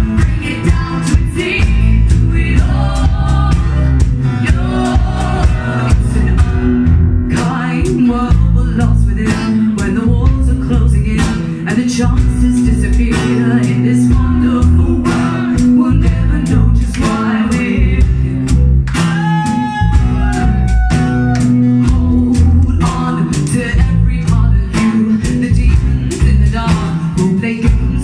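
Live band music: guitars and singing over a steady beat.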